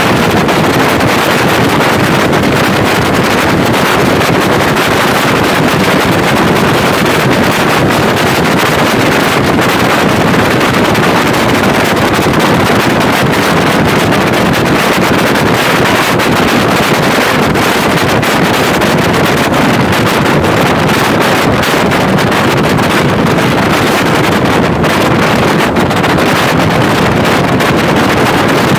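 Loud, steady wind buffeting the microphone in an open-topped limousine driving at speed, with the car's road noise mixed in.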